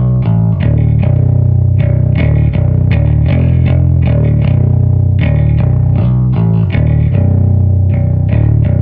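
Electric bass played through a Thronographic Rusty Box overdrive into an Earth Research Original 2000 head and a Peavey Super Festival slave driving a Peavey 2x15 cabinet with Eminence Delta speakers: a loud, distorted riff of picked, sustained low notes.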